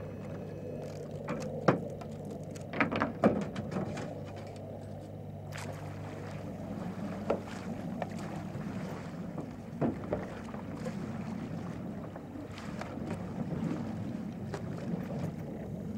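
A double-bladed paddle dipping and splashing as an Apparition layout boat is paddled, with scattered sharp knocks, the loudest about two to three seconds in. Wind noise runs throughout, with a steady low hum over the first half.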